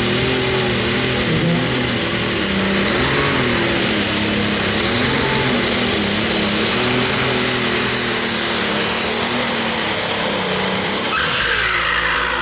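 Minneapolis-Moline G850 super stock pulling tractor's turbocharged diesel engine running at full power under load as it drags the sled, its pitch wavering. Near the end the engine note changes and falls off.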